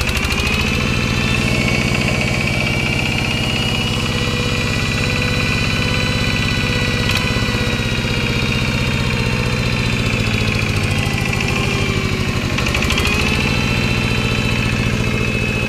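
Yanmar SS80 single-cylinder diesel engine running steadily at a fast idle, its firing pulses even and quick. The speed sags briefly and picks up again near the end. The seller calls the running sound very solid, a sign of a healthy engine.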